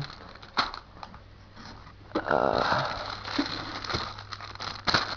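PC extension cables and their packaging being handled: a few sharp clicks and a rasping rustle about two seconds in, over a low steady hum.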